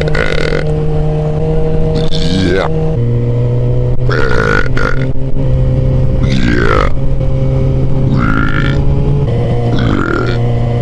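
A man belching over and over, about six belches roughly two seconds apart. Underneath runs a steady engine hum whose pitch steps down about three seconds in.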